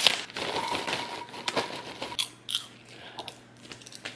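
Popcorn poured from a crinkly snack bag into a ceramic bowl: a rush of rustling and pattering at the start, then scattered light crackles and clicks as the last pieces settle and the bag rustles.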